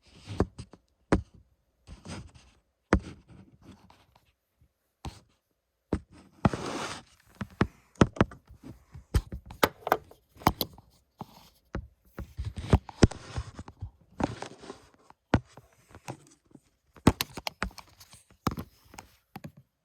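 Irregular clicks, knocks and short scraping noises from hands working on the box fan's power plug, bending a bent prong back straight.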